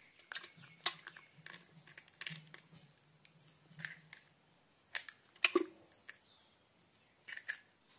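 Eggs cracked and emptied into a stainless-steel mixer-grinder jar: scattered small clicks and taps of shell on the jar, with a sharper knock and soft thud about five and a half seconds in.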